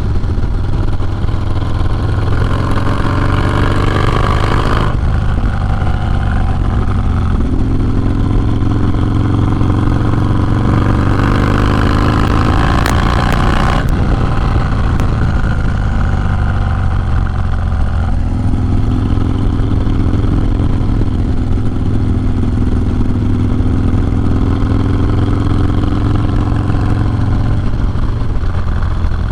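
Harley-Davidson Low Rider S's 110-cubic-inch V-twin running through a Sawicki Speed 2-into-1 exhaust under way. It pulls up through the revs twice, each time dropping off sharply, about five and fourteen seconds in, then runs at a steadier pace.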